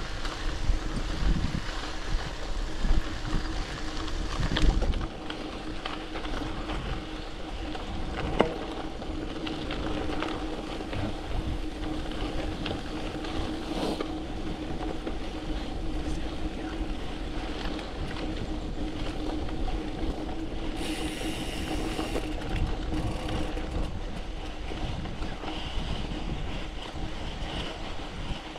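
Poseidon X Ambition gravel bike rolling over a sandy dirt track: steady tyre and road noise with a low wind rumble on the microphone, and a few sharp knocks from bumps along the way.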